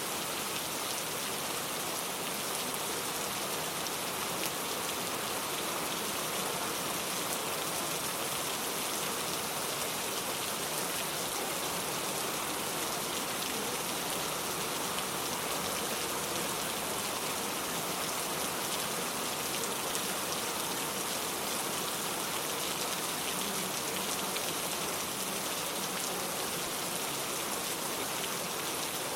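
Steady rain, an even hiss with a fine patter of drops that does not change.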